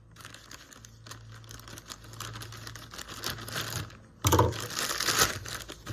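Packaging of a small gadget being handled and opened: crinkling, rustling and small clicks, with a louder stretch of crinkling beginning about four seconds in.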